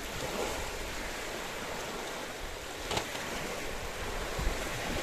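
Steady rushing noise of surf and wind at the shore, with one sharp click about three seconds in.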